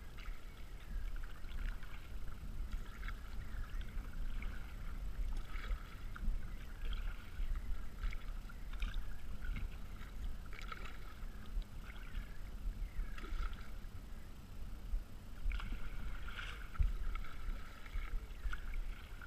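Kayak paddle strokes dipping and splashing in the water about once a second, over a steady low rumble.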